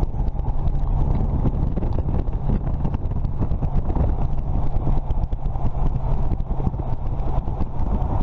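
Wind buffeting the microphone of a camera outside the window of a moving car at highway speed, a steady loud rushing rumble with road noise underneath.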